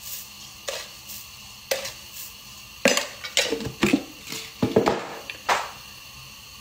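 Handling noises: a string of short knocks and rustles as objects are picked up and handled, most of them in the middle few seconds.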